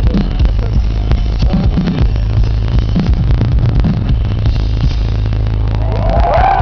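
A live rock band playing loud, with heavy bass and pounding drums, captured in a poor, muffled recording. Near the end the crowd starts cheering and whistling.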